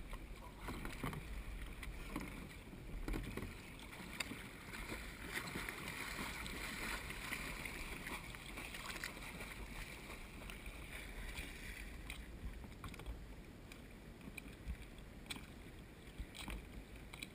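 Sea water lapping and splashing against a paddled kayak's hull on choppy water, with a few light knocks. The hiss of spray grows louder through the middle stretch.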